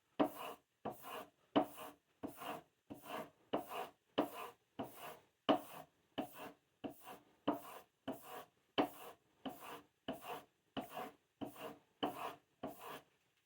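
A timber-frame bar chisel being stropped, its edge drawn in short, even rubbing strokes, about two to three a second, to hone a very fine final edge.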